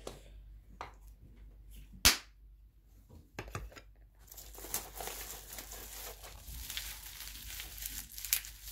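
A single sharp knock about two seconds in, then from about four seconds on the continuous crinkling of plastic bubble wrap being handled.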